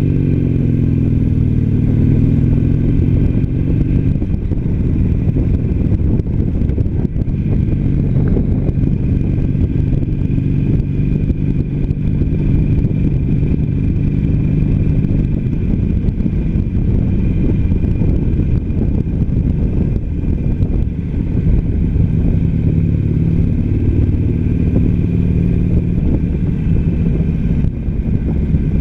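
Harley-Davidson Sportster Iron 883's air-cooled 883 cc V-twin running steadily at road speed, heard from the rider's seat. Its pitch shifts slightly a few times.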